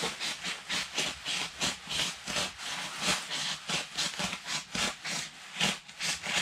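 Pocket knife sawing through heavy tent canvas in quick back-and-forth strokes, about four rasps a second.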